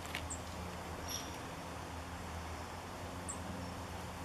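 A few very high, thin, short call notes from kinglets: one near the start, one about a second in, and two close together a little past three seconds. A faint low steady hum runs underneath.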